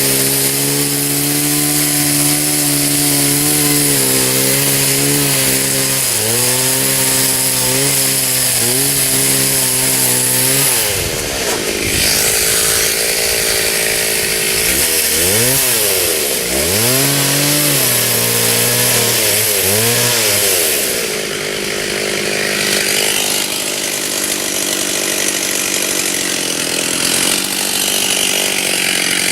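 Stihl chainsaw running at high speed as it cuts oak wood, steady at first, then its engine pitch dipping and climbing back several times through the middle as the load on the chain changes.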